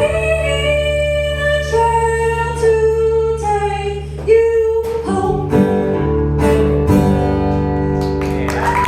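A female voice singing the last held notes of a song over acoustic guitar, then a few closing guitar strums alone. Applause starts near the end.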